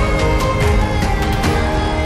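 Music track with a steady drum beat.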